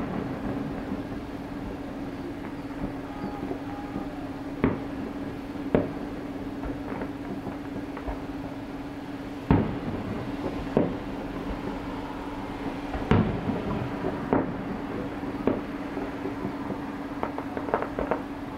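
Distant aerial fireworks shells bursting: about ten scattered booms at irregular gaps, a few closer together near the end, over a steady low hum.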